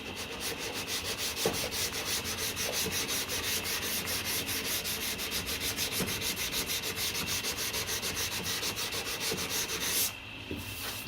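Dry hand-sanding of body filler on a car door sill with 240-grit paper: quick rhythmic back-and-forth rasping strokes, about four or five a second, stopping about ten seconds in.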